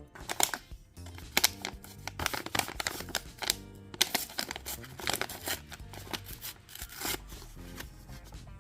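Paper crinkling and rustling in irregular sharp crackles as a handmade paper blind bag is handled and opened, over soft background music.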